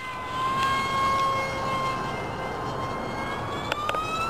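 Propeller and electric motor whine of a Cyclone F5D pylon racer on a Neu 1115 brushless motor with a 5.2x5.2 prop, a high steady tone with overtones. Its pitch holds low as the plane flies away after a pass, then climbs over the last second as it turns back toward the listener. Two sharp clicks come just before the rise.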